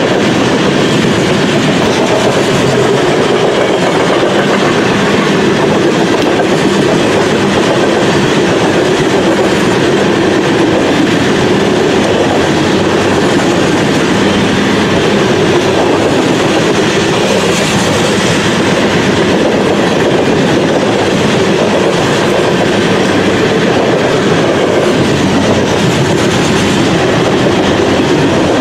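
Coal hopper cars of a freight train rolling past close by: steel wheels running on the rails in a steady, loud noise that does not let up.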